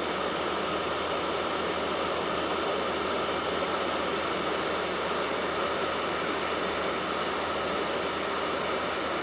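Small electric motor and fan of a homemade vacuum cleaner running steadily: an even whir with the hiss of rushing air.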